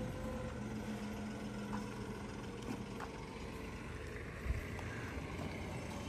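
Steady low outdoor background rumble, with one soft thump about four and a half seconds in.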